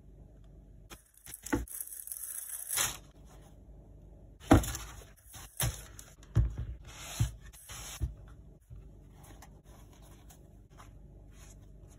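Unboxing handling noise: a cardboard shoebox and its paper packing rustle, then several short thumps and knocks as the running shoes are taken out and set down. Faint rubbing and scraping of the shoes being handled follows.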